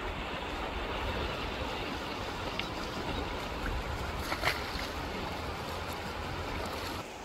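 Wind on the microphone: a steady rushing rumble that drops off suddenly near the end, with a few faint clicks midway.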